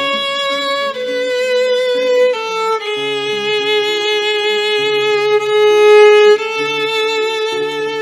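Violin and acoustic guitar duet: the violin plays a slow melody in long held notes that step downward, over a quieter plucked guitar accompaniment.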